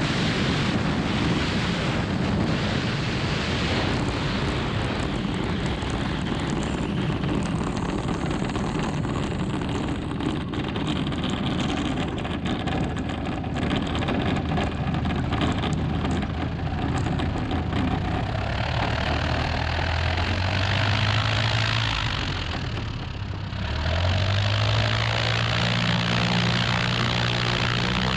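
Jodel light aircraft's propeller engine running on the ground, heavily mixed with wind rush on the microphone. Near the end the engine note dips, then rises steadily as the throttle is opened and holds at the higher speed.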